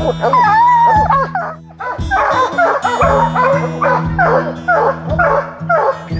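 Bear hounds barking treed: a long wavering bawl in the first second and a half, then short chop barks about two a second, the sign that the dogs have a bear up the tree. Background music with a steady low drone runs underneath.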